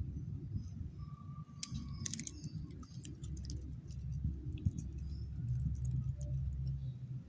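A beagle chewing raw chicken breast bone, with scattered small crunches and clicks.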